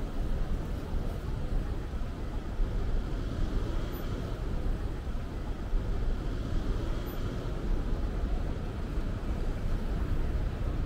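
Road traffic: cars and taxis driving past on a city street, a steady wash of noise with a strong low rumble.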